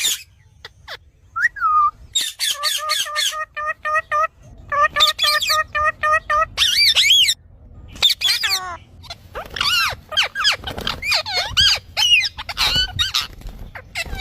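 Parrot calling: a quick run of repeated notes, about six a second, then a string of squawks that slide up and down in pitch.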